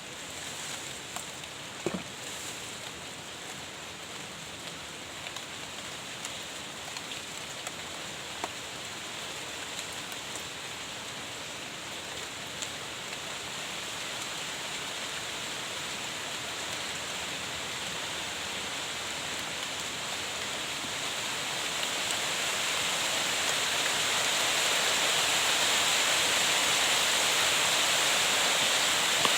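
Heavy rain falling steadily, with a few sharp ticks of drops early on, growing louder about two-thirds of the way through.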